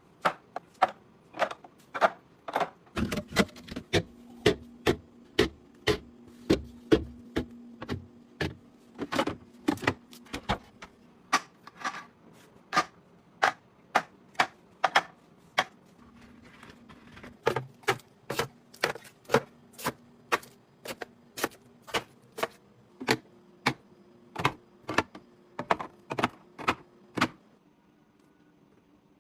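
A long run of sharp clacks and taps, roughly two a second, from hard items being set down and knocked together while restocking. A faint steady hum runs underneath. The clacking stops shortly before the end.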